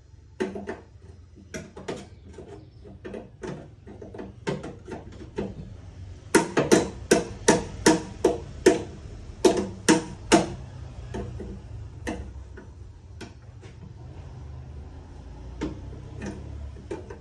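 Hammer blows, scattered at first, then a quick run of about a dozen louder strikes at two to three a second, then a few more spread out.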